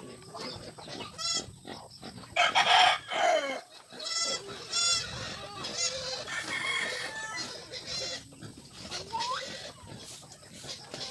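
Chickens clucking and calling in a yard, a series of separate high calls spread through the clip, with a short rising call near the end.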